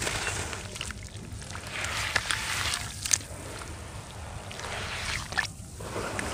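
Wet red dirt squishing and sloshing as it is worked, with small crackles and a couple of sharper cracks.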